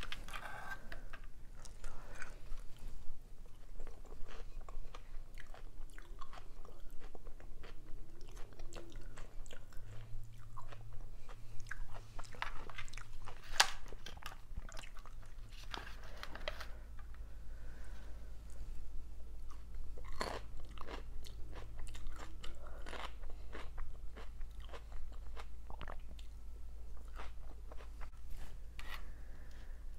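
Chewing and biting of someone eating dolmas (stuffed grape leaves) and salad, with crisp crunches and irregular clicks throughout; the sharpest click comes about 13 seconds in.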